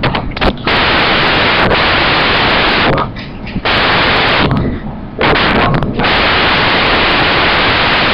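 Loud steady static hiss on the recording, briefly dropping away twice midway.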